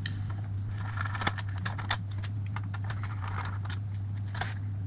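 Screws being undone from the plastic base of a Dell Latitude CPi laptop with a small screwdriver: scattered small clicks, ticks and short scrapes, over a steady low hum.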